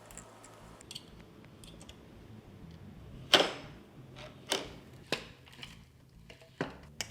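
A few sharp knocks and clacks of e-bike parts being handled and fitted together by hand, spaced irregularly, the loudest about three seconds in.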